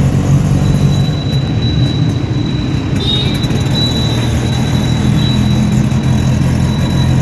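A vehicle running steadily with a low, even hum and a thin high whine above it.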